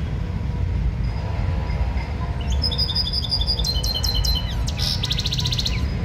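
Caged European goldfinch singing: a run of short, high chirping notes beginning about two and a half seconds in and ending in a fast trill near the end, over a steady low background rumble.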